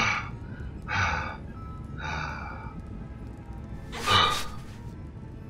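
A man's heavy gasping breaths: three breathy gasps, the last, near the end, the loudest. Faint background music underneath.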